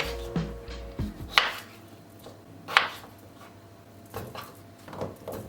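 Background music ends about a second and a half in. A few sharp knocks and clinks of objects being handled follow, the two loudest about a second and a half apart.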